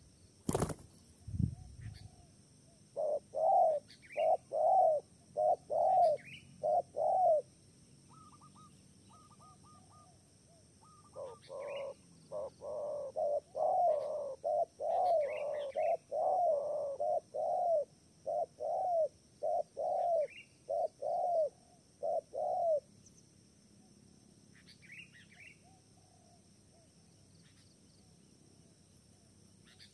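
Spotted dove cooing: a run of short low coos, a pause, then a longer series of coos starting about eleven seconds in. Faint high chirps of small birds come and go throughout, and there is a sharp click and a thud near the start.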